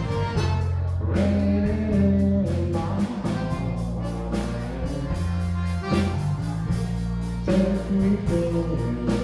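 Live Cajun band playing a song on accordion, fiddle, electric bass and drums, with a steady beat.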